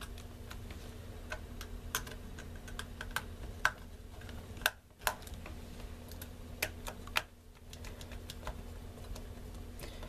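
Light, irregular clicks and taps of a small Phillips screwdriver working the screws of the metal L-shaped bracket in the battery bay of a white MacBook A1181, over a faint steady hum.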